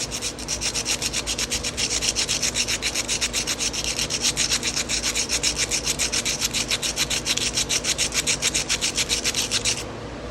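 Rough sandpaper rubbed quickly back and forth inside a rusty old carbon-steel pocket knife, scouring rust out of it: an even, rapid rasping of several strokes a second that stops abruptly near the end.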